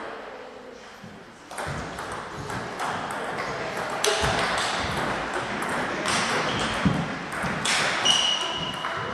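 Table tennis ball being struck by the rackets and bouncing on the table in a rally, a quick series of sharp clicks that begins about a second and a half in.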